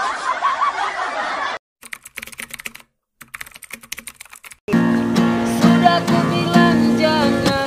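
Laughter that cuts off after about a second and a half, then a typing sound effect of scattered quick keyboard clicks, then, from about four and a half seconds in, an acoustic guitar strummed with a man singing.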